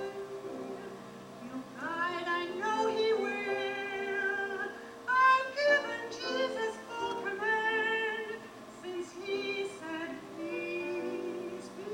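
Music: a slow, high melody in wavering, sustained phrases over steady accompaniment, part of a gospel song.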